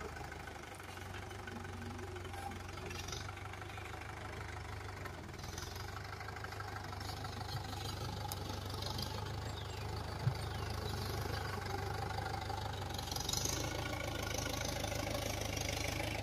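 Mahindra Yuvo tractor's diesel engine running steadily with a low drone, with one short knock about ten seconds in.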